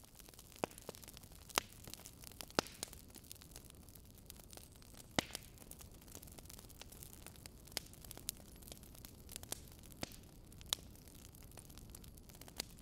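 Faint crackling: scattered sharp clicks and pops, a few louder than the rest, over a low steady hiss and hum.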